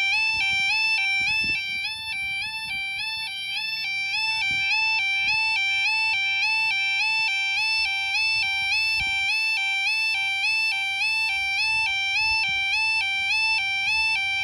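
Level crossing audible warning alarm (yodalarm) sounding a continuous two-tone warble that alternates quickly between a lower and a higher note, the warning that a train is approaching while the barriers are down.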